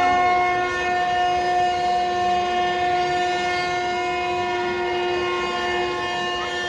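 Several conch shells (shankh) blown together by priests at a Ganga aarti, a long held horn-like blast of a few overlapping steady pitches.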